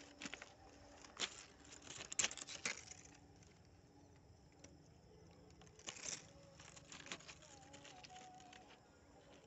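Faint scattered clicks and crunches of railway ballast stones shifting, with a cluster of sharper clicks about two seconds in and another about six seconds in.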